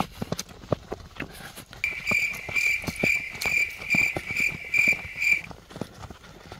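Footsteps of several people walking on a dirt path, a quick run of uneven scuffs and thuds. From about two seconds in to about five and a half seconds, a high pulsing tone beeps over them, about two and a half pulses a second.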